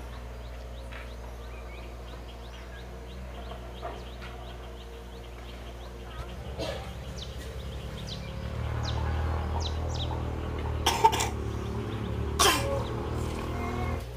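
Two short coughs about a second and a half apart, over a low rumble that grows louder about eight seconds in.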